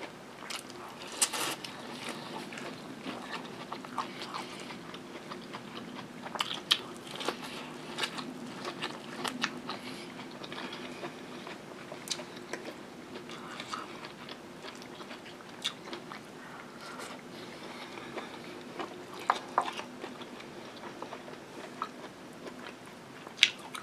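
Close-miked eating sounds: biting into corn on the cob and chewing, with many short crunches and wet mouth clicks scattered throughout.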